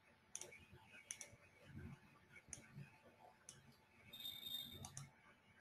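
Faint computer mouse clicks: several separate short clicks at uneven intervals against near silence.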